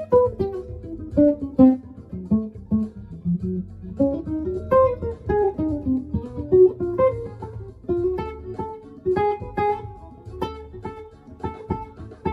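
Archtop guitar played with the thumb instead of a pick, improvising single-note jazz lines that step down, then climb and fall again. A backing track with steady bass and held chords plays underneath.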